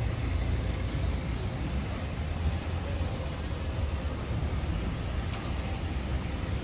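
Steady low rumble of street traffic from cars on the road.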